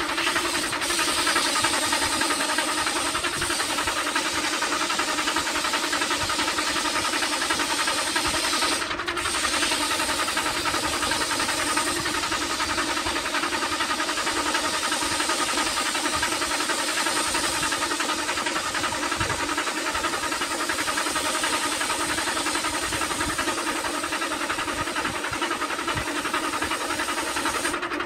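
Electric wood lathe running steadily with a coconut palm wood turning spinning on it, its motor humming under the hiss of sandpaper held against the spinning wood. The hiss breaks off briefly about a third of the way in.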